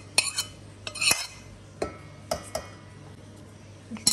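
Metal spoon clinking and scraping against a ceramic plate while scraping mashed banana off it: several sharp clinks in the first two and a half seconds, the loudest about a second in, then one more near the end.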